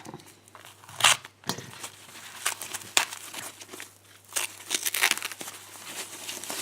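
Packaging crinkling and rustling as a lock is unwrapped and handled, in irregular sharp rustles and small clicks, the loudest about a second in.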